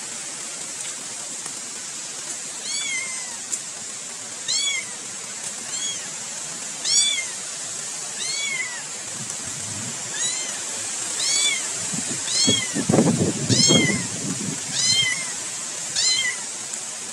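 A cat mewing over and over: short, high-pitched meows that rise and fall in pitch, about one a second.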